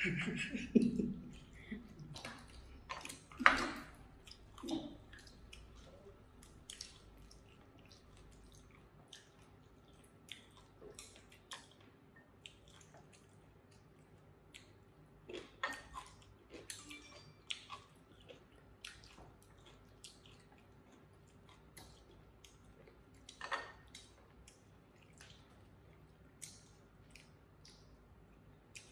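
People eating: scattered soft clicks, smacks and wet chewing sounds, denser and louder in the first few seconds.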